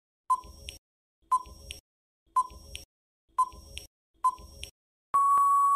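Quiz countdown-timer sound effect: five short beeps about a second apart, then one long steady beep near the end marking that time is up.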